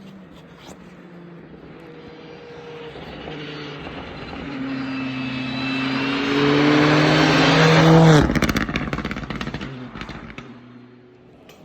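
A rally car approaches at full throttle, its engine note climbing and growing louder amid a spray of hiss from the stage surface. About eight seconds in the driver lifts off and the note drops away, followed by a rapid crackling chatter of overrun pops and turbo flutter as the car passes and fades.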